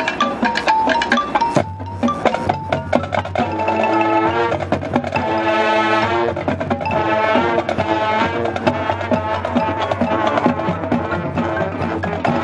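High school marching band playing: marching percussion with sharp, crisp hits at first, then brass and woodwind chords over a low sustained note from about two seconds in, with drum strikes running through.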